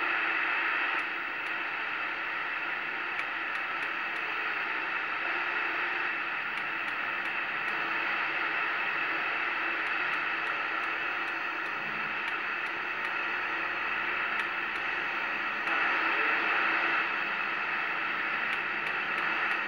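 Gemtronics GTX-66 40-channel CB radio hissing with steady static from its speaker as the channel selector is stepped up through the channels, with faint, quick clicks from the knob. The hiss gets a little louder for about a second, about sixteen seconds in.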